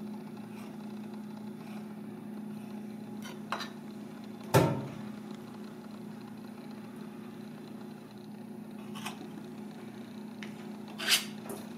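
Knife clicking and knocking on a plastic cutting board as raw surf clam meat is sliced, with one sharp knock about halfway through and lighter taps later, over a steady low hum.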